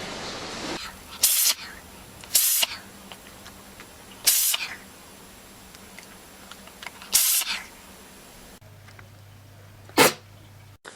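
An animal sneezing five times in short, sharp bursts: four spaced over the first seven seconds and a last one about ten seconds in.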